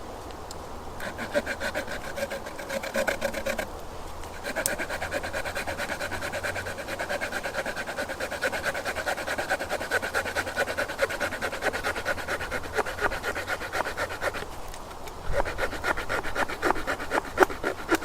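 The small wood saw blade of a Victorinox Huntsman Swiss Army knife cutting through a hardwood branch in quick back-and-forth strokes. The strokes stop briefly about four seconds in and again near the end, then pick up faster.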